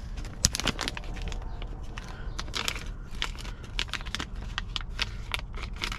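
A small clear plastic bag of screws crinkling and rustling as it is handled and opened, with a run of irregular small clicks and crackles.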